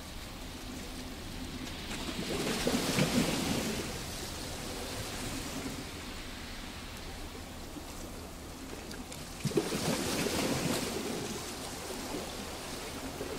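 Sea waves washing onto a rocky beach, a steady wash with two louder surges of surf, the second coming in with a sudden crash about halfway through.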